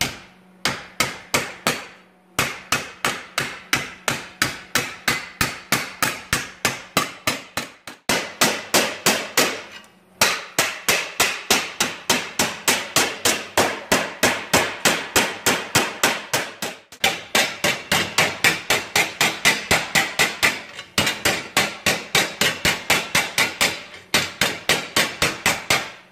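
Hammer beating the edge of a sheet-steel patch panel over a curved form to roll it: quick, steady metallic blows about three a second, in runs broken by short pauses.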